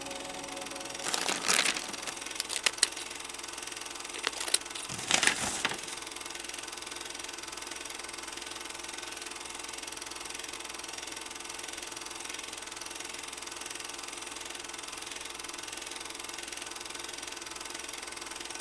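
End-screen sound effects: two noisy swooshes and a few sharp clicks in the first six seconds, over a steady crackling hiss that carries on to the end.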